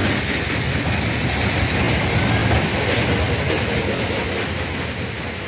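A tractor pulling a sand-loaded tipping trailer over a rough dirt road: the engine running with the trailer rattling, fading slowly as it moves away.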